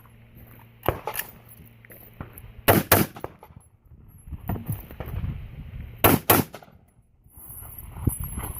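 Rifle shots fired in quick pairs, six shots in all: two about a second in, two near three seconds, and two just after six seconds, with softer knocks and shuffling between them.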